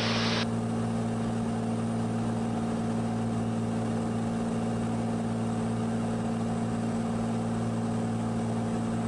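Steady drone of a Cirrus SR22's six-cylinder piston engine and propeller in level cruise, heard inside the cabin.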